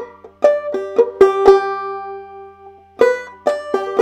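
Banjo played clawhammer style in a bar shape at the seventh fret: a short run of plucked melody notes on the first string, reaching up to the tenth fret, with the thumb dropping onto the fifth string. The measure is played twice, its notes ringing out before the second pass starts about three seconds in.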